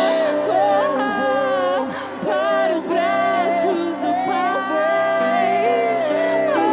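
Live acoustic worship music: a voice sings, holding and sliding between notes, over sustained accompanying chords.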